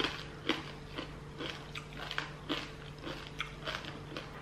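A person chewing roast pork close to the microphone, with irregular short crunches about two or three a second.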